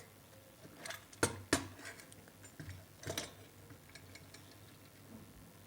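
A few light clicks and taps from handling the plastic switch-socket power plug unit and its parts, three sharper ones about a second, a second and a half and three seconds in.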